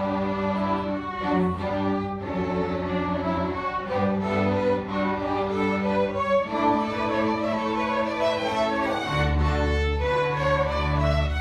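String orchestra of violins, cellos and double bass playing live, with sustained bowed notes that change every second or so. Deep low notes from the cellos and bass come in strongly about nine seconds in.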